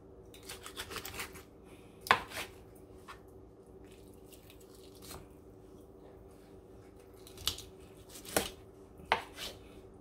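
Kitchen knife cutting through a parrot fish on a plastic cutting board: scattered knocks and short scrapes of the blade against the fish and board, loudest about two seconds in and again near the end.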